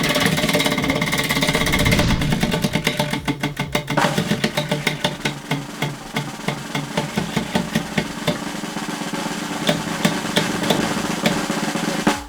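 A prize wheel spinning, its pointer clicking rapidly against the pegs and the clicks gradually slowing, with steady musical tones underneath.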